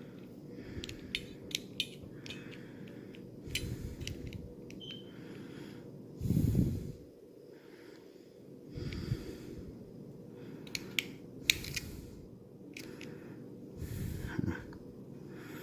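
Small sharp clicks and taps from a utility knife's blade-release mechanism being worked by hand, mixed with a few heavy breaths or snorts through the nose as the person strains at it, the loudest breath about six seconds in.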